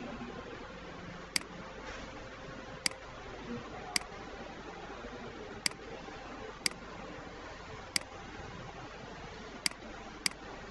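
Computer mouse button clicking eight times at irregular intervals, sharp single clicks over a steady low hiss of room noise.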